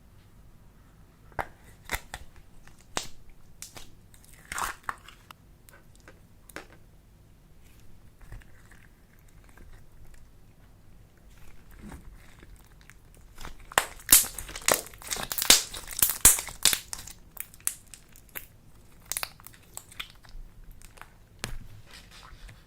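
Slime mixed with clay being squished and pressed by hand, giving sticky clicks and crackles: scattered pops at first, then a dense run of crackling about two-thirds of the way through.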